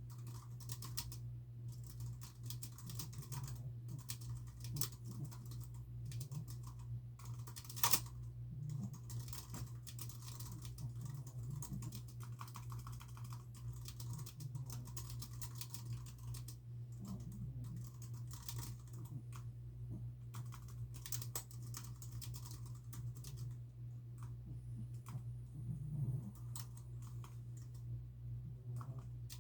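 Typing on a computer keyboard in irregular runs of keystrokes, with one sharper, louder key click about eight seconds in, over a steady low hum.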